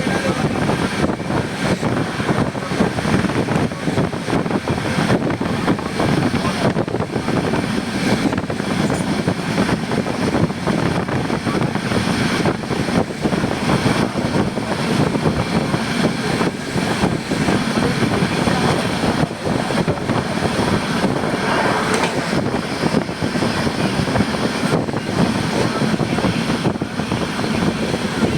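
Train running steadily: a continuous rumble and rattle of wheels on the rails, with no breaks or changes.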